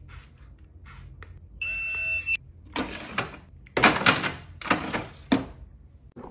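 A handheld red-light beauty device gives a short electronic beep about one and a half seconds in, followed by a few rounds of plastic clicking and rattling as it is set down into an acrylic drawer organizer.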